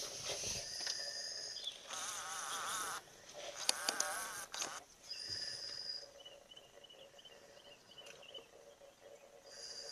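Insects buzzing and chirping in grassland: several high, steady tones that start and stop. In the first half there are two short stretches of wavering trill, and later a quieter pulsing chirp.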